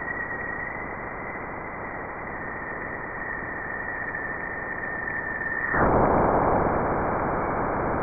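Jupiter's radio emissions recorded by a NASA spacecraft and converted into sound: a steady hiss with a thin high tone held above it, drifting slightly lower. About six seconds in the tone drops out and the hiss grows louder.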